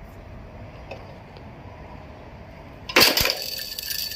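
Automatic feeding riveting machine striking once, about three seconds in, with a single loud metallic clack as the head comes down and sets a rivet, followed by a high metallic ringing and clinking rattle. Before the stroke only a low steady hum is heard.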